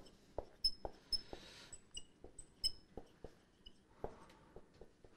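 Marker pen writing on a whiteboard: a string of light taps and short high squeaks as the letters are written.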